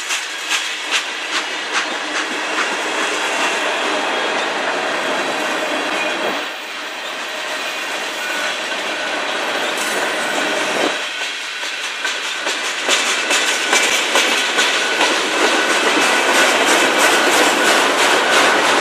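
Freight cars of a manifest train rolling past close by, the steel wheels clicking rhythmically over rail joints above a steady rumble. The clicking comes in quicker runs near the start and again in the last third, with a thin high wheel squeal running underneath.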